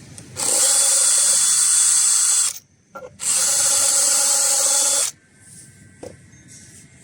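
Electric drill running with a position drill bit, in two bursts of about two seconds each with a short pause between; a steady whine over a high-pitched hiss.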